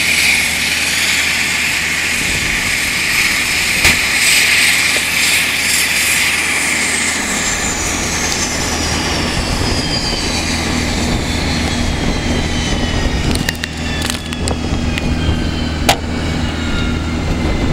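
Dash 8 Q400 turboprop engines winding down at shutdown: a high turbine whine fades as several tones slide slowly downward in pitch. A steady low hum sits underneath, and a few sharp clicks come near the end.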